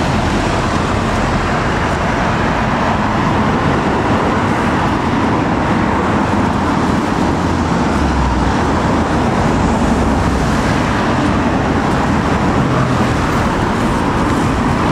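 Steady road traffic noise: a continuous wash of passing cars and other vehicles with a low rumble, no single engine standing out.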